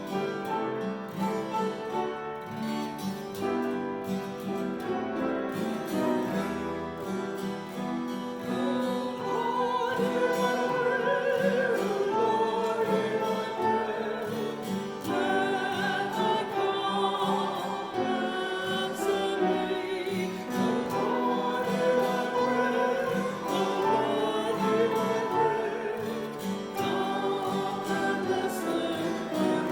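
Music: singing with vibrato over instrumental accompaniment, with the voice coming in about nine seconds in after an instrumental opening.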